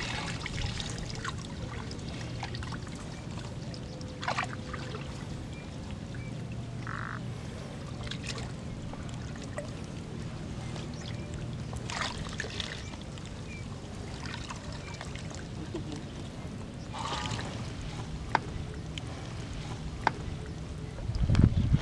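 Lake water sloshing and splashing in a few short bursts as a person wades waist-deep through shallow, weedy water, over a steady low hum.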